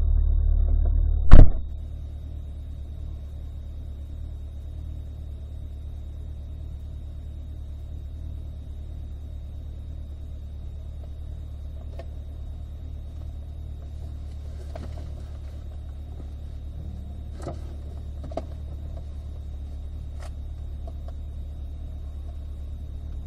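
Corvette engine idling, heard from inside the cabin as a steady low rumble. About a second and a half in there is a single loud thump, after which the rumble is quieter.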